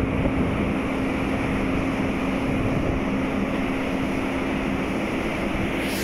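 Steady rush of wind and sea water streaming past a moving ship's hull, with the ship's engine humming low and even underneath, and wind buffeting the microphone.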